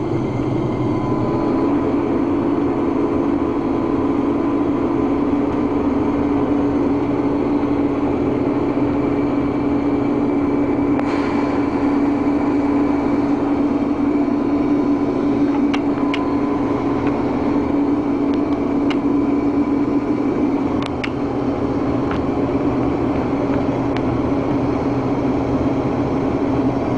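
Combine harvester's engine and machinery running steadily, a loud even hum that drops a little in pitch about a second and a half in, with a few faint ticks over it.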